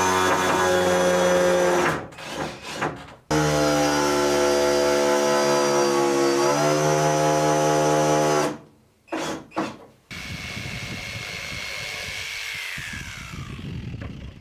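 Power drill driving wood screws into log walls: two long runs of steady motor whine with short trigger bursts between them, the pitch dipping briefly under load partway through the second run. Near the end a quieter whirring winds down with a falling tone.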